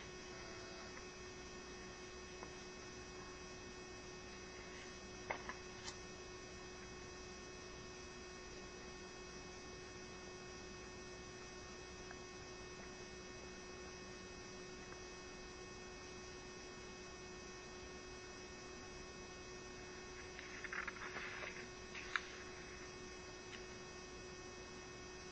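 Steady electrical hum with a faint hiss, broken by a few faint clicks and a brief soft rustle near the end.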